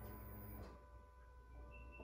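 Near silence: a low steady hum with a few faint, short high tones near the end.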